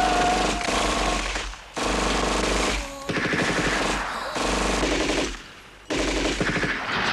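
Automatic gunfire in long, rapid bursts, broken by a few short pauses: about a second and a half in, near three seconds, and for about half a second past five seconds.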